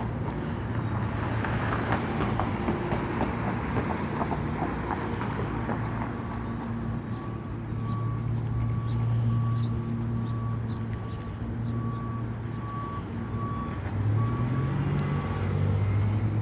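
Vehicle engine running with a reversing beeper sounding at a steady pace, starting about six seconds in and stopping shortly before the end. The engine note rises near the end.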